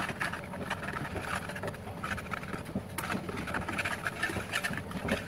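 Wire whisk beating gram flour, yogurt and water into a thin batter in a plastic bowl: quick, irregular swishing and scraping strokes against the bowl.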